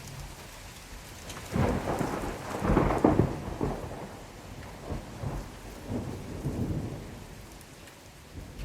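Steady rain falling, with a roll of thunder that breaks in suddenly about a second and a half in, peaks about a second later and rumbles off in weaker swells.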